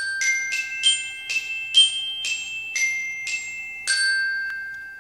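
Short musical intro jingle: a simple melody of about ten mallet-percussion notes, roughly two a second, the last note ringing out and fading away.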